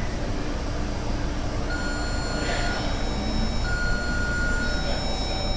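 Door-closing warning tones on a Taipei Metro C371 train. Starting about two seconds in, electronic beeps sound in a repeating pattern over the steady hum of the stopped train, as the doors begin to slide shut.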